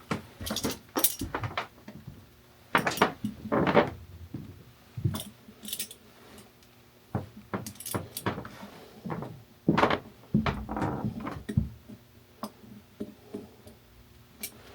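Galvanized steel pipe fittings clinking and knocking against each other as they are handled, in irregular separate clanks with brief metallic ringing.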